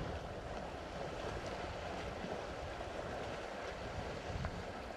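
African elephants wading through a dam, water sloshing and splashing steadily around their legs, with a low rumble of wind on the microphone.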